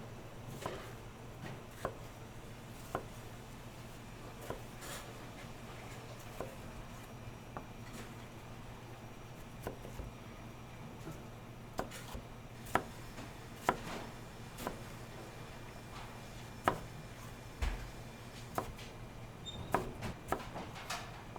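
Kitchen food-prep noises: irregular light knocks and clicks of utensils, bowls and containers being handled on a counter, roughly one a second and some in quick pairs, over a steady low hum.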